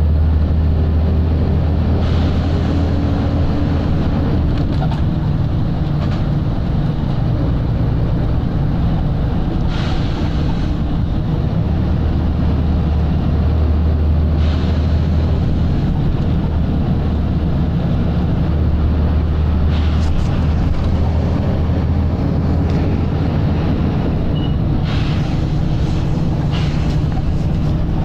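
Volvo B7RLE bus's seven-litre six-cylinder diesel engine running hard under way, its low drone strengthening and easing as the load changes. Several short hisses of air are heard over it.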